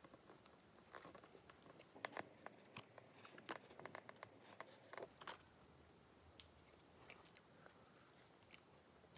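Faint mouth sounds of someone biting and chewing a flaky-crusted egg yolk pastry, with scattered soft crackles and clicks, mostly in the middle of the stretch.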